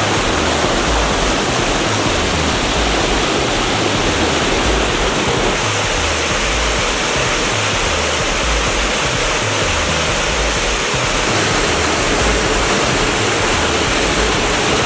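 Steady rushing of a small mountain waterfall and stream, a loud even hiss of falling water with a low rumble beneath.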